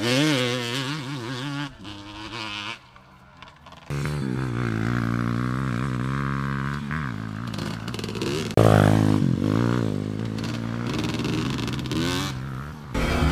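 A dirt bike engine revving up and down as it rides a dirt track, its pitch rising and falling with the throttle. The sound drops away briefly about three seconds in, then comes back with sudden jumps in loudness about four and eight and a half seconds in.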